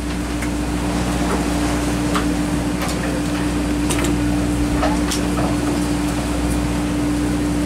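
A fishing party boat's machinery running with a steady hum: a low drone with one constant tone. A few light clicks and knocks from gear on deck sound over it.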